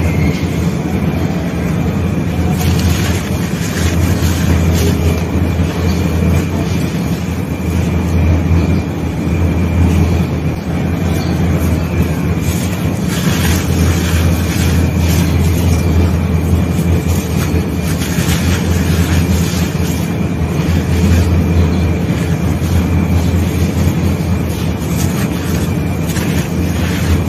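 Damp sand-cement being crumbled and sifted by hand: gritty crunching and the crackle of falling grit, over a steady low rumble.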